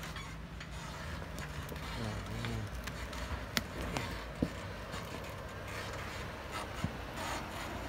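Jeep Wrangler engine running low and steady as the vehicle crawls over rocks at walking pace, with a few sharp clicks as the tyres climb over stones.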